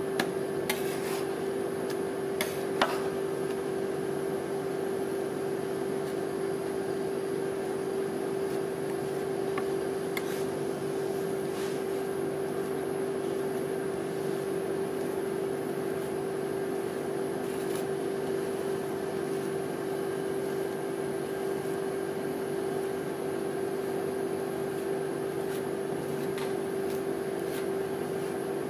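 Steady hum from the rolled-ice-cream cold plate's refrigeration unit, one constant tone throughout. Metal spatulas click against the steel pan a few times, the loudest about three seconds in.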